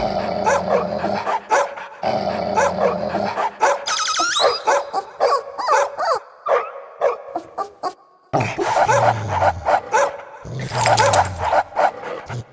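Dogs yipping, whining and barking in many short calls, over background music.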